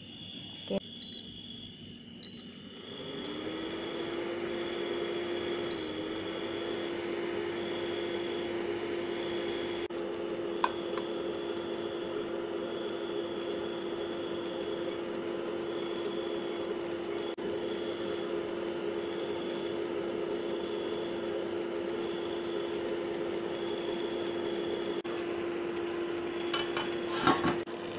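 Induction cooktop set at 1300 W heating a wok of water: a steady electric hum with a fan whir that starts about three seconds in. A few sharp clatters near the end.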